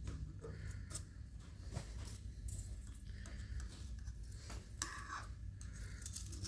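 Metal lathe turning a stud of tough stock: a steady low hum from the machine, with scattered scratchy ticks and scrapes from the cutting tool working the metal.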